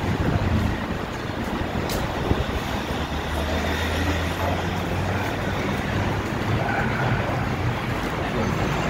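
Steady ambient din of an elevated train station concourse, with a low, even rumble of road traffic.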